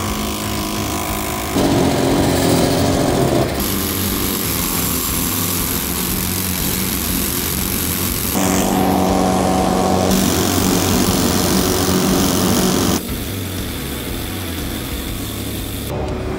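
Construction machinery running: engines drone steadily while a rig-mounted dowel drill bores holes into the edge of the existing concrete slab, with a harsh hiss in some stretches. The noise changes abruptly every few seconds.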